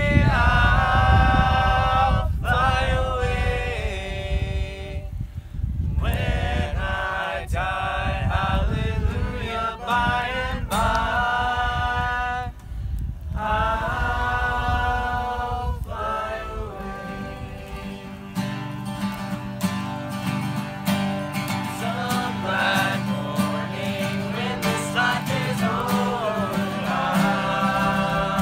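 A mixed group of voices singing a song together in harmony, phrase by phrase with short pauses between. Acoustic guitars strumming chords come to the fore about two-thirds of the way through.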